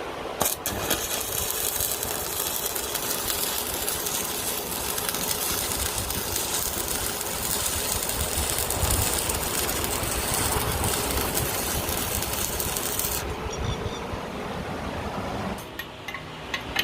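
Loud hissing, crackling metalworking noise that starts suddenly about half a second in and cuts off abruptly about thirteen seconds in, over a low rumble.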